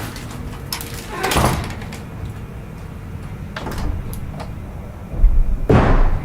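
A few short noisy bumps over a steady low background, the loudest, with a deep thud, near the end.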